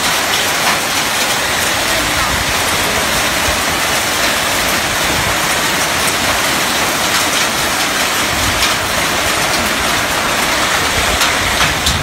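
A hailstorm with heavy rain: a steady loud hiss of downpour on bare ground, with scattered small ticks of hailstones striking.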